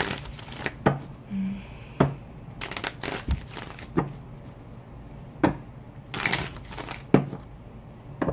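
A tarot deck being shuffled by hand: irregular sharp slaps of the cards about once a second, broken by short rustling runs.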